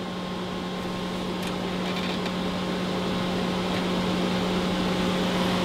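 Steady hum with a fan-like hiss from powered-up bench test equipment, growing slightly louder.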